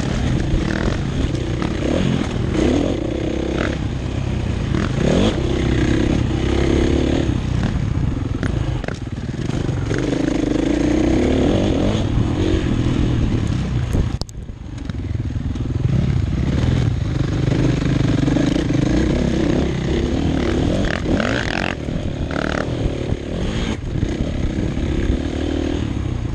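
Dirt bike engine running hard as it is ridden off-road, its note rising and falling as the throttle opens and closes. The sound cuts out briefly about halfway through.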